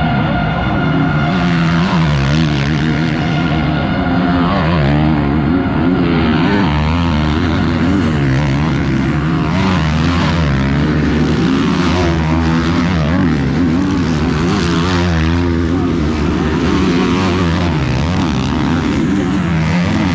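Motocross bikes racing past on the track, their engines revving up and down repeatedly as they accelerate, shift and back off, several engines overlapping.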